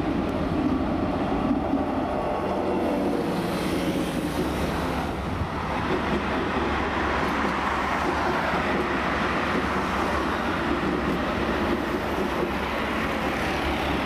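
Busy street traffic with a modern light-rail tram passing: a steady mix of road vehicles and the tram running along its track.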